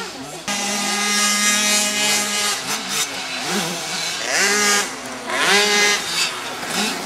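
Motocross bike engines racing: held at steady high revs for a couple of seconds, then revving up in two rising sweeps about four and five and a half seconds in as the throttle is opened over the jumps.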